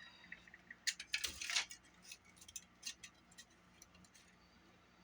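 Small tools and parts of a Walkman cassette mechanism clicking and tapping, with a short scraping rattle about a second in and scattered light ticks after it.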